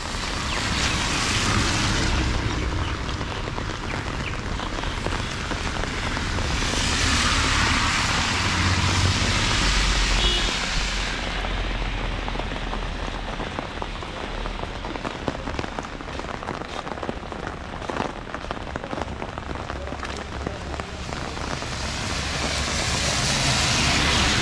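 Steady rain with the hiss of car tyres on the wet road, swelling three times as cars pass: near the start, about eight seconds in, and near the end.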